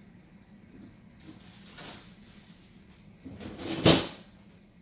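Faint handling sounds, then a kitchen door shut with a loud knock near the end, as someone searches the kitchen for something.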